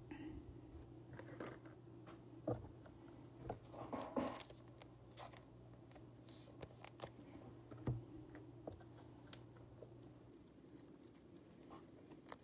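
Faint, scattered taps, clicks and rustles of trading cards being handled and slid into plastic card sleeves, over a low steady hum that stops near the end.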